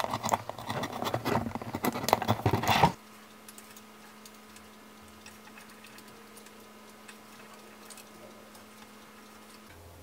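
A pointed tool scratching and clicking rapidly against a cardboard box top, cutting off abruptly about three seconds in. After that there are only faint, scattered light ticks over a steady low hum.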